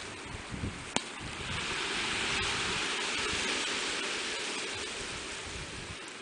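A rushing outdoor noise that swells over a couple of seconds and then slowly fades, with a single sharp click about a second in.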